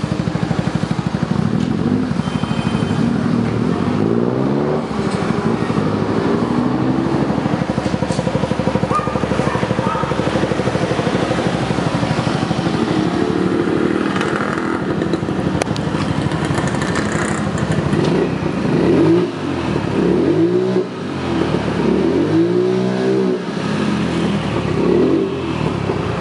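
Honda Forza MF08 scooter's 250 cc single-cylinder four-stroke engine running through an aftermarket stainless slip-on exhaust, idling steadily and revved up and back down several times, with the blips coming close together in the last several seconds.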